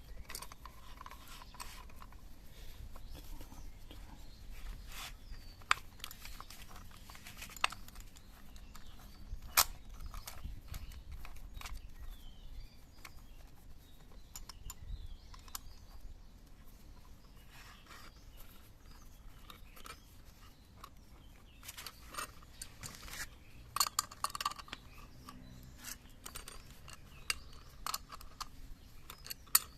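Scattered clicks and light taps of tools and small metal parts being handled, a few sharper knocks among them, busiest a little past the middle.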